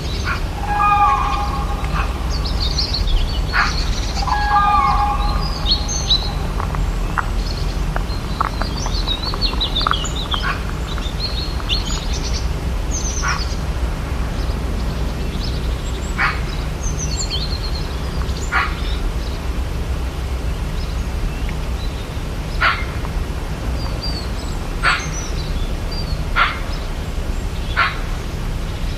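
Rainforest ambience: many birds chirping and calling over a steady low rumble. Two longer, lower calls come in the first five seconds, and sharp single call notes sound every couple of seconds in the second half.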